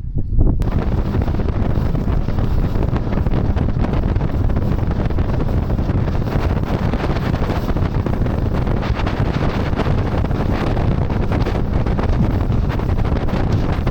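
Strong wind buffeting the microphone: a loud, steady rumble that starts abruptly about half a second in.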